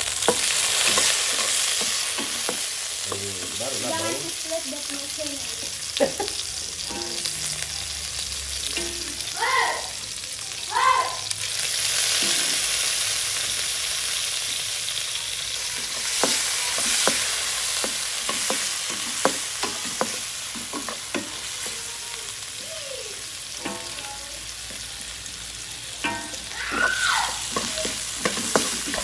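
Wild boar belly, shallots and garlic sizzling in hot oil in a wok, with a spatula stirring the pieces and knocking and scraping against the wok many times.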